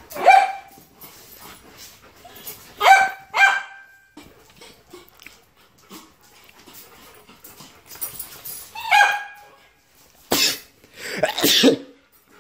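Dog barking in short single barks, about six in all, spaced a few seconds apart, with a quick cluster near the end, while playing rough with another dog.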